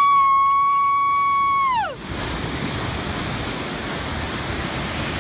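A long, high-pitched shout held on one note, sliding down and stopping about two seconds in, then the steady rush of a machine-made wave breaking into whitewater.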